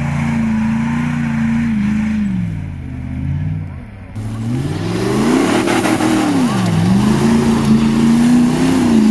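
Mitsubishi Pajero off-road trial truck's engine revving hard in mud. It is held at high revs, falls away about two seconds in, climbs again, dips once more about seven seconds in, and is then held high. From about four seconds in, a steady hiss of spinning tyres and thrown mud runs underneath.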